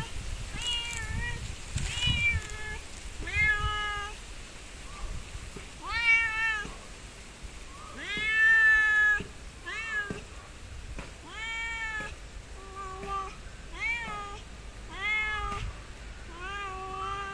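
A cat meowing over and over, about a dozen short meows every second or two, the one about eight seconds in longer and louder than the rest.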